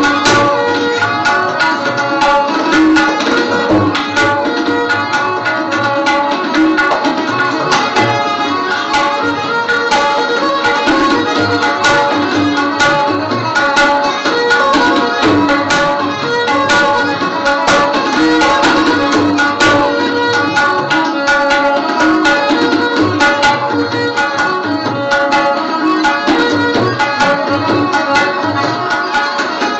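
Instrumental background music in an Indian classical style: steady hand-drum strokes under plucked and held string melody.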